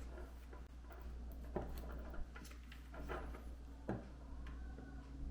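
Scattered light clicks and taps from handling small tools and wires during soldering, over a low steady hum.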